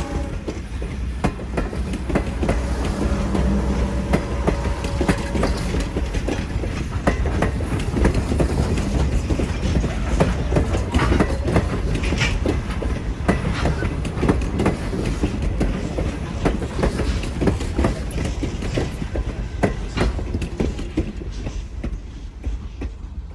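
Steam-hauled passenger train rolling past, its wheels clicking and clacking over the rail joints over a steady low rumble. The sound eases off near the end as the train moves away.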